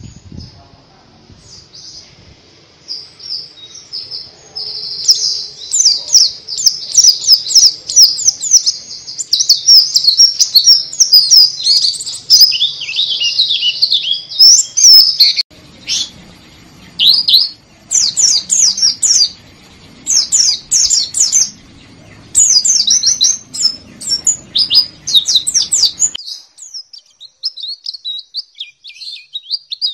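White-eye (pleci) singing: rapid, high-pitched twittering chirps and trills in long bursts with short pauses.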